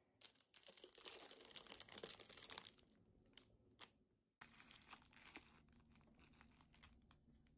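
Crinkling and tearing of packaging, dense for the first few seconds. Two sharp clicks come a little after three seconds, then lighter rustling follows.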